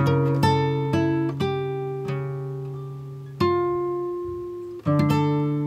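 Background music: a plucked string instrument playing slow notes and chords, each struck and left to ring and fade before the next.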